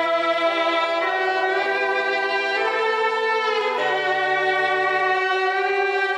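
Intro music of sustained string chords led by violin, moving slowly from one held chord to the next.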